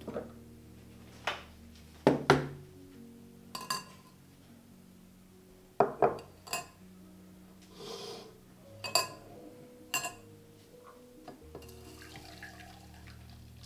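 Kitchenware clinking and knocking, about a dozen separate strikes, some ringing like glass or metal, with a brief splash of water about eight seconds in, over soft background music.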